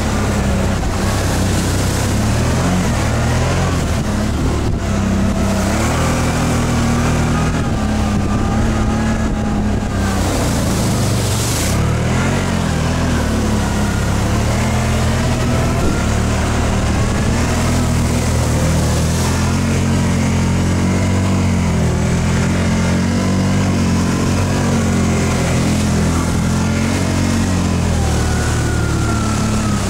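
ATV (quad bike) engine running under changing throttle, its pitch rising and falling again and again at a steady loudness.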